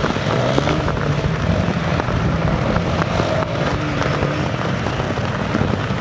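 Engine of a Honda CRF250L single-cylinder off-road motorcycle, revving up and down while being ridden.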